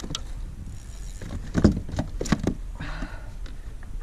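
Irregular knocks, clicks and rattles as a freshly caught redfin is handled in a plastic kayak, the fish and tackle knocking against the hull; the loudest knocks come about one and a half to two and a half seconds in.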